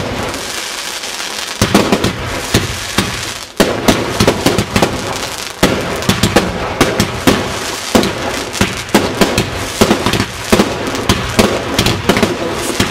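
Fireworks display: a hissing rush for the first second and a half, then aerial shells bursting in a rapid, almost continuous string of sharp bangs and crackles.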